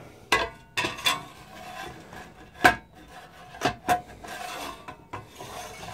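Perforated metal cover of a switch-mode bench DC power supply being fitted back over the chassis: scraping and rubbing as it slides on, with several sharp knocks, the loudest a little under three seconds in.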